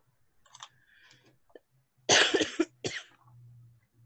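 A person coughing: a harsh cough about two seconds in, followed by a shorter second cough.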